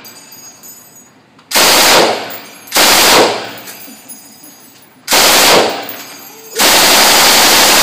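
M249 SAW light machine gun firing fully automatic in four bursts: three short ones, then a longer sustained burst near the end. Each burst rings on briefly in the enclosed indoor range.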